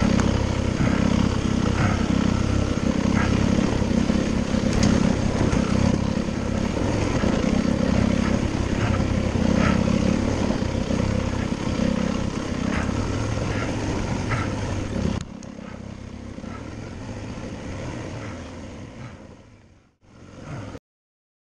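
Dirt bike engine running steadily under way, with scattered short clicks and knocks. About fifteen seconds in the engine sound drops away sharply, leaving a quieter hiss that fades out and cuts off near the end.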